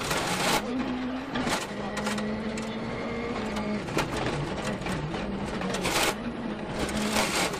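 Ford Fiesta RS WRC rally car's turbocharged four-cylinder engine running hard, its note stepping up and down every second or two as it changes gear and lifts, with several short sharp bursts of noise over it.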